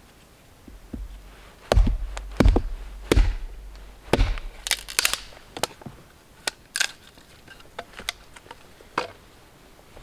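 A small stick split with a hatchet: four heavy knocks against a log about a second apart, then a run of sharp cracks and snaps as the wood splits and is pried apart.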